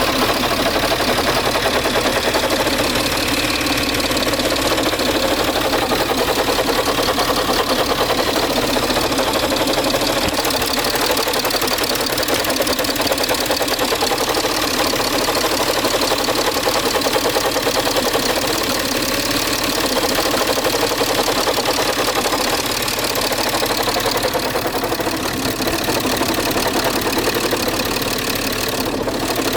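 Peugeot 607's 2.7 HDi V6 diesel engine running steadily, with the grinding noise that the owner is trying to trace.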